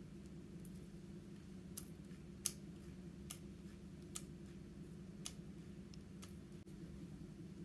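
Yellow slime being worked by hand, giving sharp clicking pops at irregular intervals, about eight over several seconds, over a faint steady low hum.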